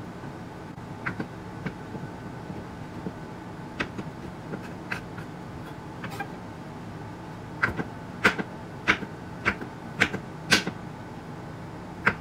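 Kitchen knife chopping baked chicken breast on a wooden cutting board: scattered light knocks, then a louder run of about six chops roughly half a second apart in the second half, over a steady low hum.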